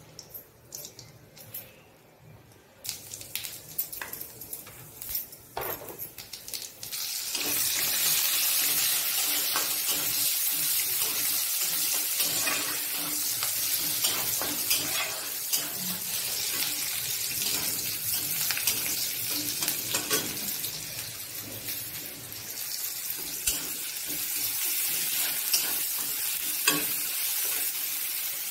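Vegetables frying in hot oil in a kadai, stirred with a metal spatula. Scattered taps and scrapes at first, then a loud, steady sizzle from about seven seconds in.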